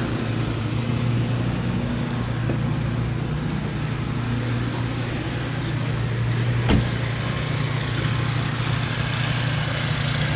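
Motor vehicle engine running steadily at a low idle, with a single sharp click about two-thirds of the way through.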